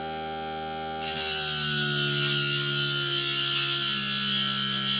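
Cordless 18V bench grinder running with a steady motor hum; about a second in, a steel screwdriver is pressed against the grinding wheel, adding a louder grinding hiss, and the motor's pitch sags slightly under the load.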